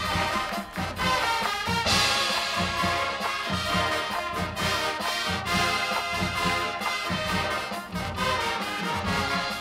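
Marching band playing, with full brass chords over a drumline's steady low beat; the sound swells louder and brighter about two seconds in.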